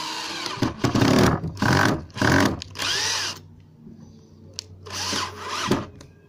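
Makita 18 V cordless drill-driver driving screws through a wooden guide batten into plywood: the motor whirs in a series of bursts, its pitch rising and falling with the trigger, with a pause after the middle and one last burst near the end.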